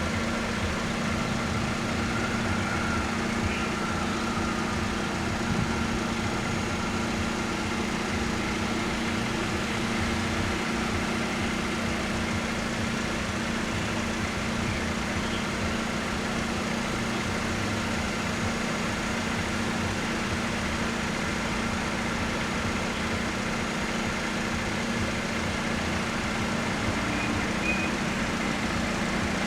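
Engine idling with a steady, unchanging low hum.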